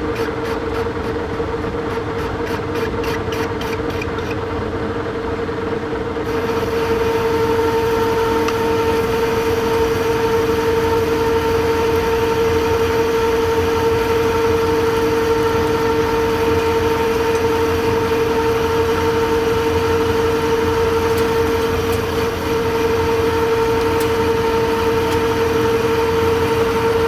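Monarch Model K engine lathe running with a steady whine while facing the end of a steel bar. About six seconds in, a steady hiss comes in and the sound gets louder, then holds steady.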